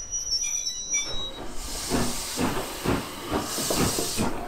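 A brief high squeal of train wheels or brakes in the first second. Then Southern Railway S15 steam locomotive No. 825, close alongside, hisses loudly with steam in two surges, the second near the end, over uneven low beats.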